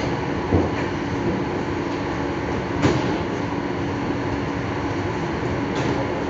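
Steady running noise and hum of an electric train heard from inside the carriage, with two sharp knocks about half a second and about three seconds in.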